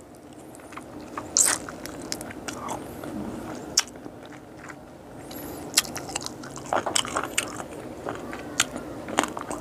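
A person biting into and chewing boiled frog, with irregular sharp crunches and wet mouth clicks.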